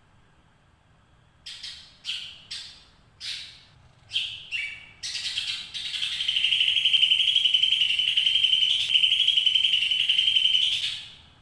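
Green leafbird (cucak ijo) calling: a few short sharp calls, then one long fast-trilled 'ngekek' call held for about six seconds before it stops abruptly.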